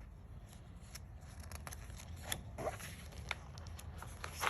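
Paper being handled as the pages of a soft-cover book are turned: faint scattered rustles and small clicks, with a slightly louder rustle near the end, over a low steady hum.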